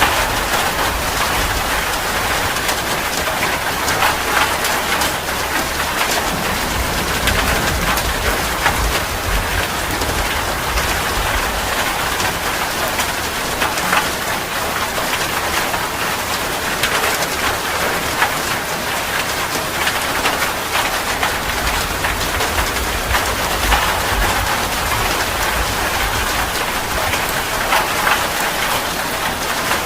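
Heavy rain falling steadily, a dense hiss of drops striking a surface with many small individual splats.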